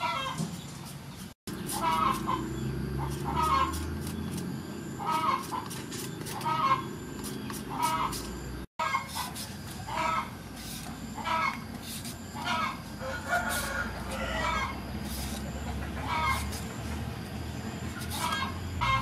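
Chickens clucking over and over in short calls about a second apart, with light scraping clicks of a knife peeling lotus root.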